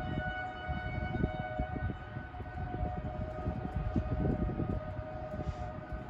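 Outdoor tornado warning siren sounding, holding a steady tone made of two close pitches rather than rising and falling, with an uneven low rumble underneath.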